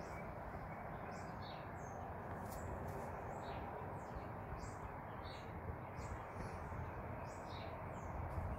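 Triumph Street Triple R's 675 cc inline-three idling steadily on a cold start. Small birds chirp again and again over it.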